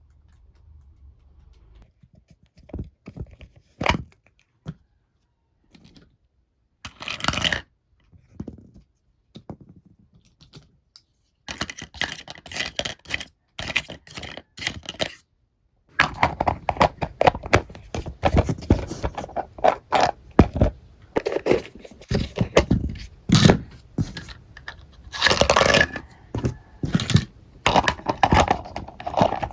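Packaging and small plastic toy pieces being handled: rustling, tearing and scraping with many sharp clicks and knocks. Sparse at first, it turns busy and near-continuous about halfway through.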